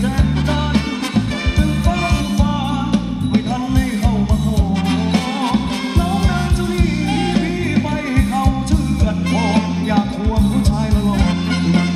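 Thai ramwong dance music from a live band: a steady, driving drum and bass beat under a singer's melody.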